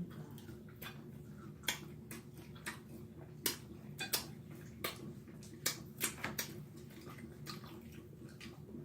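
Close-up eating sounds: about a dozen sharp, irregular clicks and crunches of food being chewed and handled at the table, over a faint steady hum.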